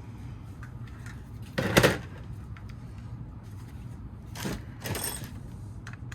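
Handling noise as plastic smoke alarms are moved and set down: a short clatter about two seconds in, then two softer clatters near the end.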